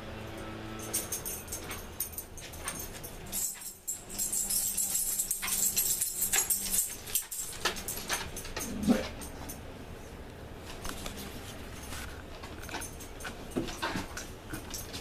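Dogs moving about with metal collar tags jingling and clicking, loudest in a run of a few seconds near the middle, over a steady low hum.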